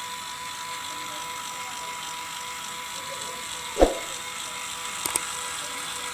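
A small electric motor buzzing steadily, with a single thump about four seconds in and a couple of faint clicks near the end.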